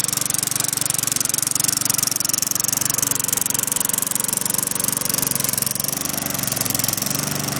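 Small lawn mower engine running steadily, cold, just after it has been started with a few extra priming drops.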